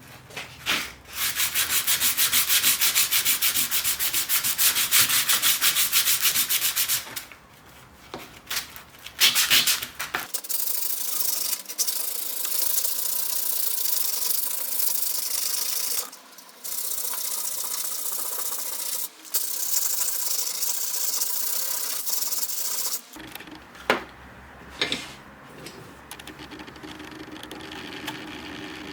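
Sanding: abrasive rubbing in stretches of several seconds with short breaks between them, loudest in the first few seconds.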